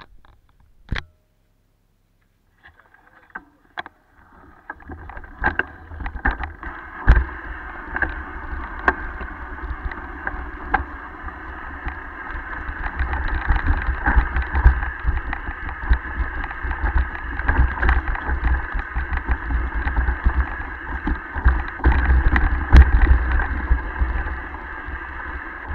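Mountain bike descending a rough, rocky trail covered in dry leaves: the rattle of the bike and sharp knocks as it runs over rocks and roots, over steady tyre and wind noise. It starts about 4 seconds in, after a near-silent start with a couple of clicks.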